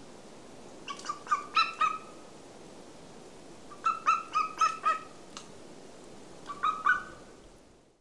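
Golden eagle calling: three runs of short, pitched notes in quick succession, about a second in, around four seconds in and a brief one near the end, over a steady recording hiss that fades out at the close.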